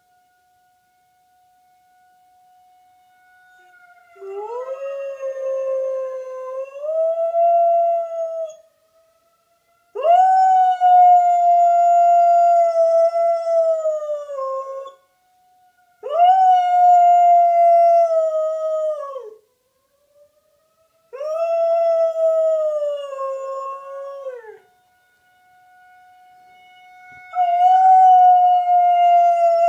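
Dog howling along with a siren: five long howls, each swooping up at the start, holding, then sagging in pitch at the end. A steady faint siren tone sounds in the gaps between them.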